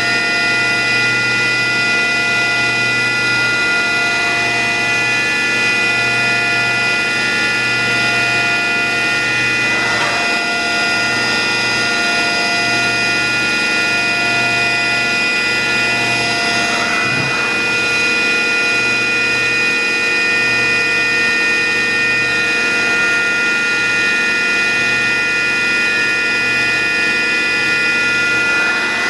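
Machine-shop machinery running with a steady hum made of several held tones, over a low throb that pulses on and off about once a second.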